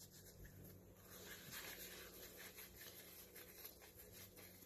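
Near silence, with faint rustling of a damp paper towel being peeled off a dyed egg, slightly louder about a second in.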